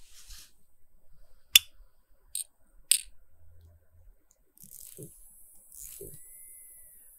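Small, sharp clicks of watch parts and watchmaker's tools being handled on the bench, three in the first three seconds. Later there are soft handling knocks and a faint hiss as the movement is held and worked on.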